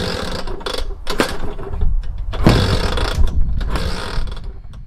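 Small vintage scooter being kick-started: repeated loud mechanical clattering strokes roughly a second apart.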